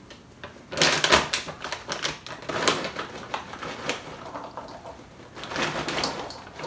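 A plastic bag of dried cranberries crinkling as it is handled, with light clicks and taps as a measuring spoon scoops cranberries out and drops them into a plastic bowl. The sounds come in short clusters, loudest about a second in.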